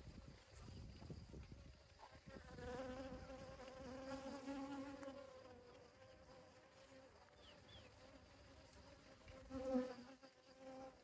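Bee buzzing inside a dragon fruit flower while gathering pollen: a faint steady buzz from about two seconds in for roughly three seconds, then a second, louder buzz shortly before the end.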